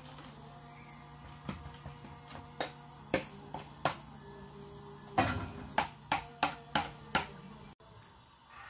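Sharp taps and knocks of kitchenware against an aluminium cooking pot as rice is emptied into it from a plastic colander, ending in a quick run of about five taps, three a second, over a low steady hum.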